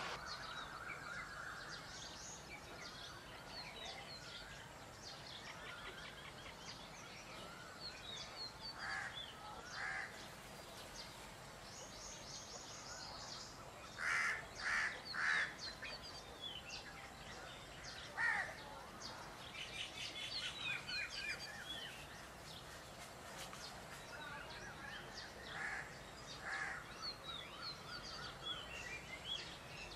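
Peacock calling now and then, loudest in a quick run of three calls about halfway through and a single call a few seconds later, over small songbirds chirping steadily.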